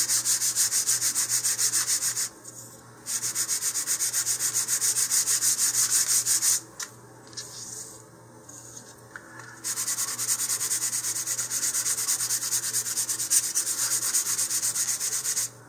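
Fine sandpaper on a sanding tee rubbed over balsa-wood rocket fins in quick, even back-and-forth strokes along the grain. It comes in three spells, with short pauses about two seconds in and from about seven to ten seconds.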